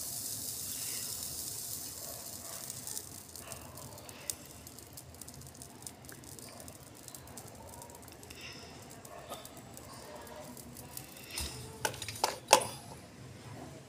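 Plastic pipe fittings handled against a metal tool. A high hiss fades over the first few seconds, light clicks follow, and a quick cluster of sharp knocks and clatter comes near the end.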